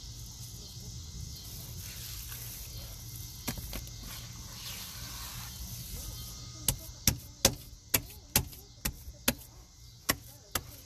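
Hands squeezing and slapping a thick, wet powder paste in a plastic tub. The paste gives sharp wet slaps, about two or three a second, which start a little past halfway through over a steady high hiss.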